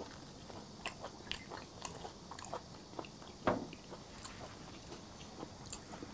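Close-up mouth sounds of a person chewing raw fish sashimi: soft, wet clicks and smacks, with one louder click about three and a half seconds in.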